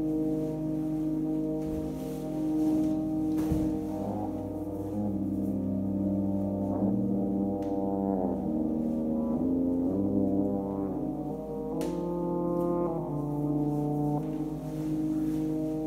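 Background music of slow, long-held chords that shift every few seconds, with a sliding change in the middle.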